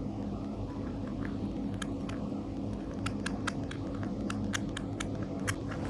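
Rabbits chewing mango: quick, irregular wet clicks and smacks, starting about two seconds in and coming several a second, over a steady low hum.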